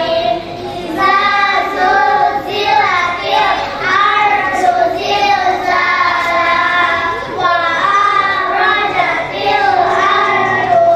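A group of children singing together, one melody with long held notes in phrases and brief pauses for breath between them.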